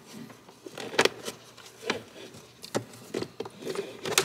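Irregular clicks and rattles as a car's hood release cable is worked loose and pulled out by hand through the engine bay, with about half a dozen sharp knocks among softer handling noise.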